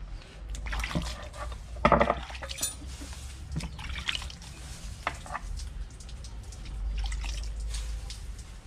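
Water splashing and dripping as split spiny lobster halves are rinsed by hand with water from a plastic container, with scattered small splashes and knocks. The loudest splash comes about two seconds in.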